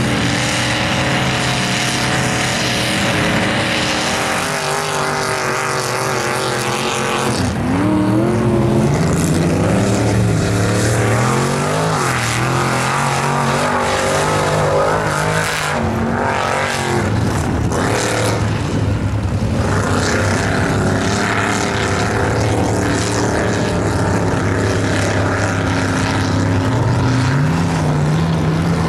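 Lifted Chevy mud trucks' engines revving hard, the pitch climbing and falling again and again as the throttle is worked, over the rush of tyres throwing mud and water.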